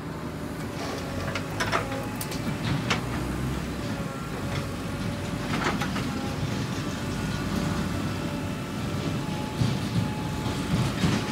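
JCB 3DX backhoe loader's diesel engine running steadily while it loads soil into a tractor trolley, with several short sharp knocks from the work.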